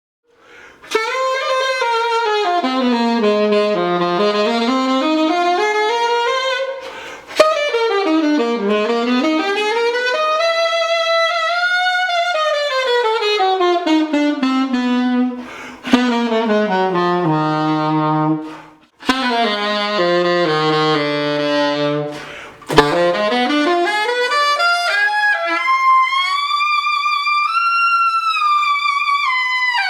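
Saxophone, fitted with a hand-made ring ligature on its mouthpiece, playing fast sweeping runs up and down in several phrases with short breaks, ending on a high note held with vibrato.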